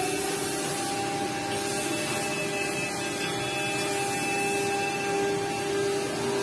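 Five-axis CNC router's spindle whining steadily as its cutter carves a rotating wooden workpiece on the machine's lathe axis, with an even cutting hiss under the whine.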